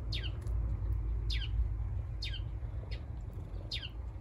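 A bird calling repeatedly outdoors: four short calls, each falling steeply in pitch, about a second apart, over a low steady rumble.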